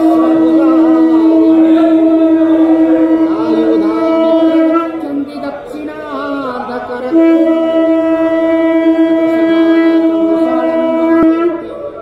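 Conch shell (shankha) blown in two long, steady blasts at one pitch. The first ends about five seconds in; the second starts about two seconds later and stops near the end. Voices are heard in the gap between them.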